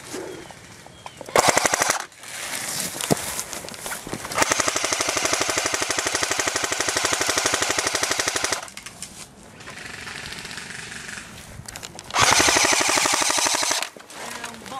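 Airsoft M60-style electric machine gun firing full-auto bursts, a fast, even rattle of the motor-driven gearbox cycling: a short burst about a second and a half in, a long burst of about four seconds from about four seconds in, and another burst of about a second and a half near the end. Fainter rapid fire is heard between the long burst and the last one.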